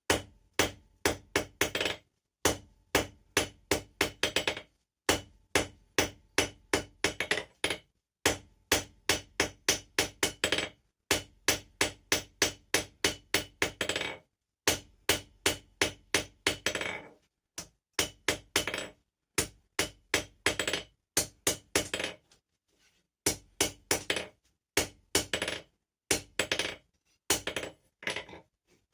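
Blacksmith's hand hammer forging steel on an anvil: runs of sharp blows, about three a second, broken by short pauses.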